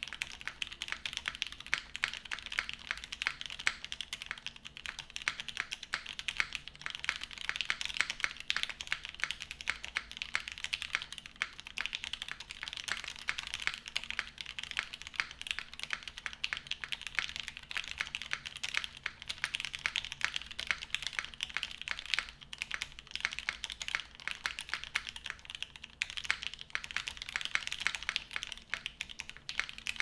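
Continuous fast typing on a DN Seven prototype custom mechanical keyboard: Cherry-top Tealios linear switches on an aluminium plate, GMK doubleshot ABS keycaps, case mounted on its bottom O-ring only. A dense, even stream of key clacks with no pauses, bright rather than deep.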